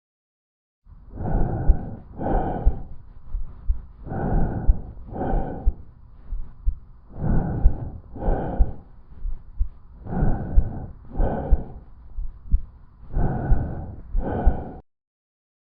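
Lung sounds recorded through a stethoscope on the chest: five breaths about three seconds apart, each a noisy inhalation followed by a similar exhalation.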